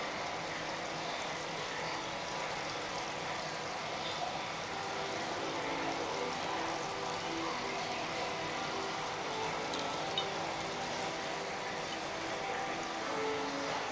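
Steady bubbling and rushing of water circulating in a garra rufa fish-spa tank, with faint low tones in the background from about five seconds in.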